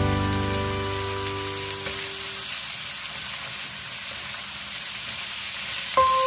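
Young jackfruit pieces sizzling in a frying pan, an even hiss of cooking. Background music with held notes fades out over the first couple of seconds, and a new melody starts near the end.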